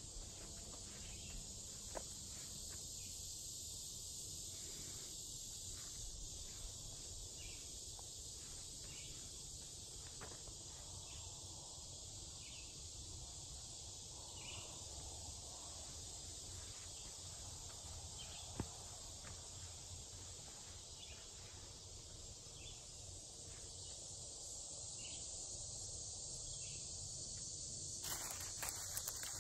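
Steady high-pitched chorus of insects in summer woodland, with faint footsteps on the trail now and then.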